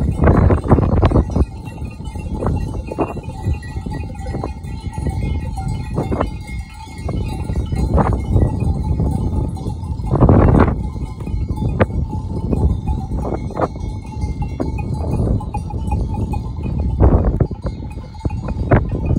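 Bells on a grazing flock of sheep clanking and ringing irregularly, over a heavy low rumble of wind on the microphone.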